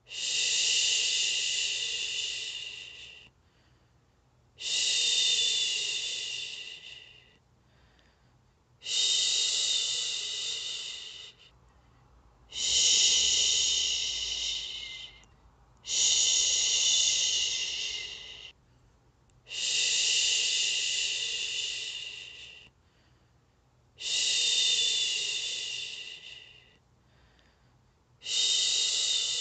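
A woman's long 'shhhh' shushing to soothe a baby to sleep, repeated eight times, about one every four seconds. Each shush starts sharply and fades away over about three seconds, with a short gap before the next.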